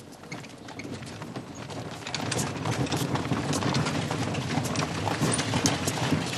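Horse hooves clip-clopping on a stone-paved street, with wheels rolling over the stones. It grows louder about two seconds in.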